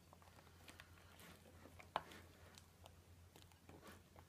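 Faint, soft squishing of foamy borax slime being stirred and lifted with a spatula in a glass bowl, with a single sharp click about two seconds in.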